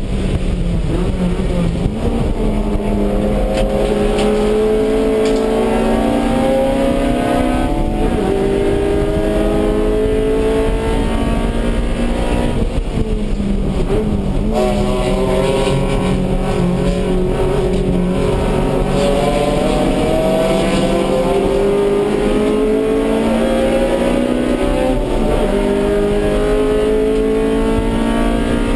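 Stock Honda B18C5 1.8-litre DOHC VTEC four-cylinder of a Civic EG race car, heard from inside the stripped cabin under hard acceleration. Its pitch climbs in long rising pulls and drops at each gear change, with a short break about halfway before it pulls again.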